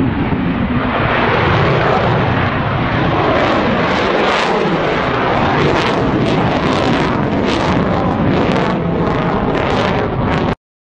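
Solid-fuel rocket motor of a Ghaznavi ballistic missile at launch: a loud, steady rushing noise that turns crackly in its second half, then cuts off suddenly near the end.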